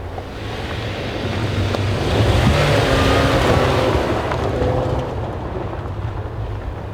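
Rally car on a snow stage, its engine rumble and tyre noise swelling to a peak about two to four seconds in, then easing off.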